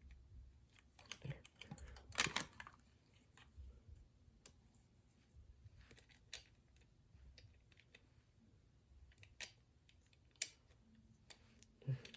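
Small parts of a toy mechanism handled and fitted together: scattered light clicks and taps, with a louder cluster of clacks about two seconds in.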